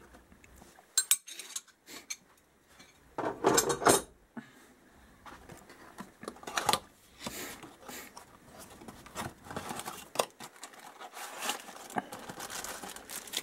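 Cardboard boxes of motorcycle bearing kits being handled and opened on a workbench: scattered knocks, clicks and packaging rustle, with a louder burst of handling noise about three to four seconds in.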